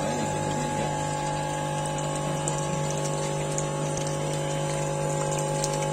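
Ebara 50x40 FSHA centrifugal pump, driven by a 3 HP, 2900 rpm three-phase electric motor, running steadily with a constant hum. It is primed and delivering water, which pours from its hose and splashes into a plastic basin.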